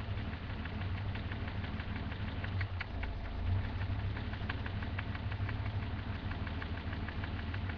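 Turbocharged BMW M30 straight-six idling, heard from the top of the engine: a steady low hum with a rapid, regular ticking knock riding on it, which the owner takes for engine knock.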